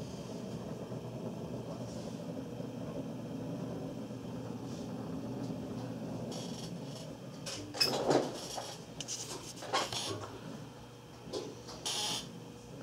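Dell Precision 360 desktop tower's cooling fans whirring steadily, heard close up, followed by several short knocks and clicks in the last five seconds.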